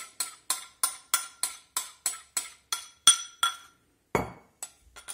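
Metal spoon scraping and tapping against a small ceramic bowl to get out the last melted butter: quick, evenly spaced clinks, about three a second, then a few louder knocks near the end.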